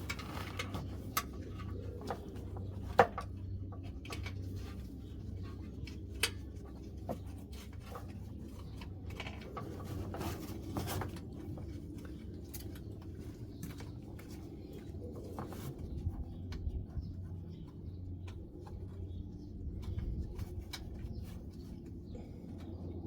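Scattered small metallic clicks and taps, like tools and parts being handled, over a steady low hum; the sharpest tap comes about three seconds in.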